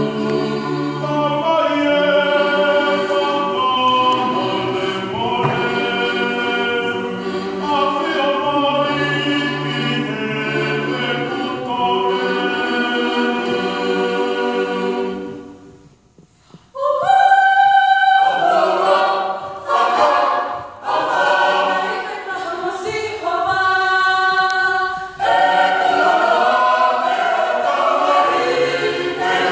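Mixed youth choir of men's, women's and children's voices singing a Tongan hiva usu hymn a cappella in part harmony. The singing stops briefly about halfway through, then starts up again.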